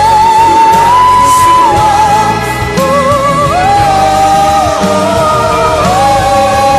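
Live pop ballad: a woman's voice belting long, high held notes with vibrato over full band accompaniment, in a large hall.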